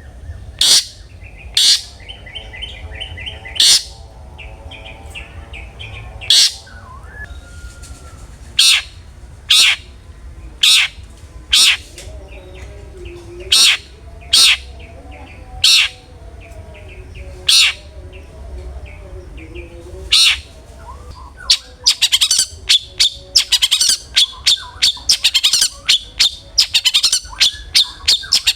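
Long-tailed shrike (cendet) giving loud, sharp single calls about once a second, breaking into a rapid run of calls about three-quarters of the way through. Fainter chattering bird notes and a low steady hum sit underneath.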